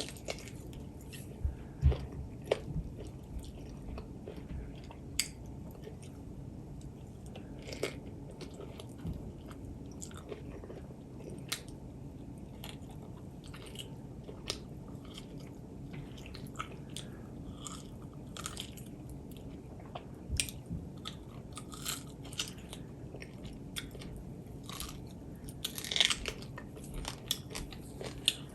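A person chewing and biting food close to the microphone, mukbang-style, with irregular crunches, smacks and clicks scattered throughout. A sharper cluster comes about two seconds in and again near the end.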